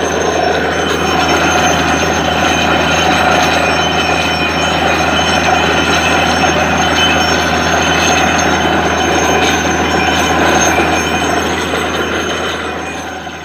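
Borewell drilling rig running: a loud, steady mechanical din over a constant low hum, which begins to fade near the end.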